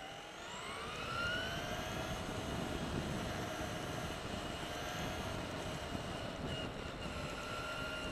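Traxxas E-Maxx RC monster truck's electric motor and drivetrain whining. The whine rises in pitch during the first second as the truck speeds up, then holds steady over the rumble of the tyres on the asphalt path.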